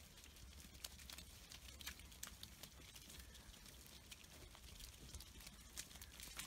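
Near silence with faint, irregular clicking of many sheep's hooves walking on a wet tarmac lane.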